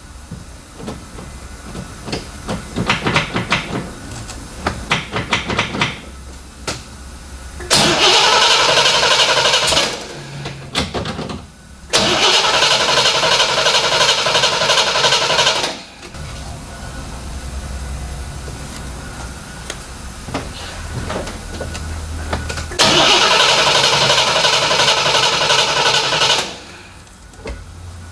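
A 1970 Corvette's 350 cubic-inch small-block Chevy V8 being cranked on the starter in three bursts of a few seconds each, never catching. It will not fire because there is no spark: the ignition is getting no power. A run of light clicks comes before the first burst.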